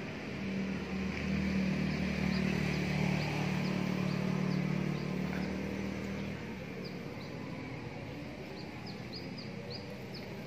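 A steady low engine hum swells about half a second in and fades out around six seconds in, over many short, high bird chirps.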